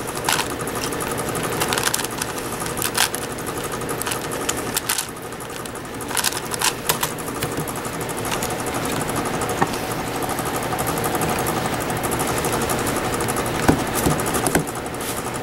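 Plastic 5x5 speed cube being turned fast by hand: a rapid rattling clatter of its layers, with sharper clicks now and then, over steady background noise.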